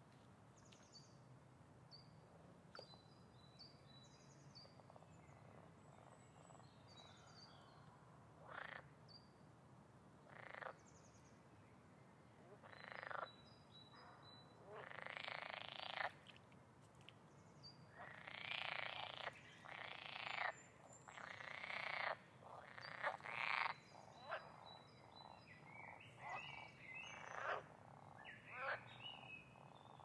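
Wetland nature ambience: frogs croaking in repeated rattling calls that come more often from about a quarter of the way in, with small birds chirping high and briefly near the start.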